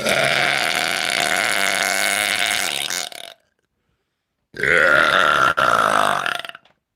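Two long, loud burps from a woman with a gassy stomach after drinking soda. The first lasts about three seconds; the second starts about a second after it ends and lasts about two seconds.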